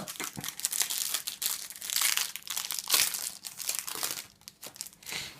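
Plastic wrapper of a Panini Adrenalyn XL trading-card pack crinkling as it is torn and pulled open, a dense crackle that dies down near the end.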